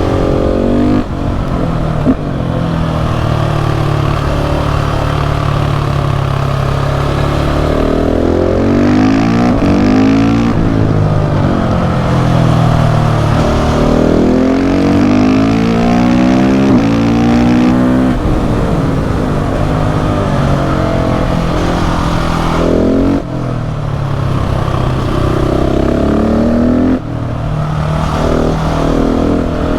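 KTM 690 SMC R's single-cylinder engine through a Leo Vince exhaust, ridden hard: revs climb and fall again and again as it accelerates, shifts and closes the throttle. There are short drops in loudness about a second in and twice near the end.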